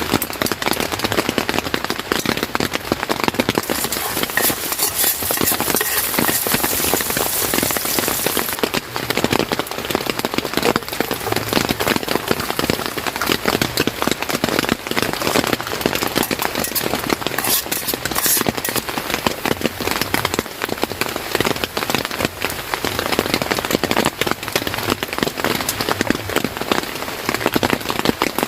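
Steady rain falling on a surface: a dense, continuous patter of drops, a little brighter and hissier for a few seconds near the start.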